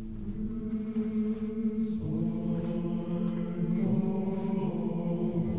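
Film score: low, sustained chant-like voices holding long notes, with the harmony shifting about two seconds in and again near four seconds.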